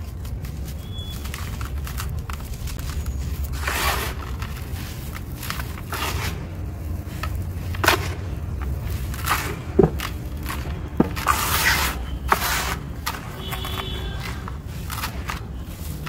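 Hands digging into and crumbling dry, dusty sand-cement mix in a plastic bucket: irregular gritty rustling and scraping swishes with a few sharp crunches, over a steady low rumble.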